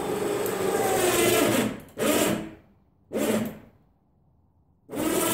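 12-volt electric winch motor running in four bursts, the first the longest, winding in its aircraft cable to raise a wooden hitch-mounted snow plow.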